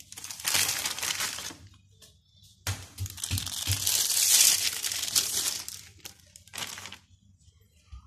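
Plastic packaging crinkling as a paratha is handled out of its bag on its plastic separator sheet. It comes in two spells, the second longer, with a few soft knocks early in the second.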